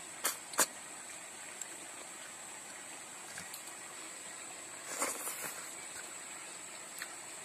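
Cooked snails in their shells clicking as they are eaten and handled: two sharp clicks in quick succession near the start, then a short clatter of shells about five seconds in as fingers pick through a pile of them, with a few faint ticks, over a steady hiss.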